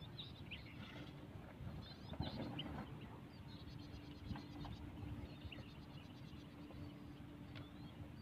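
Faint, scattered bird chirps over a low rumble of outdoor noise, with a steady low hum coming in about two and a half seconds in.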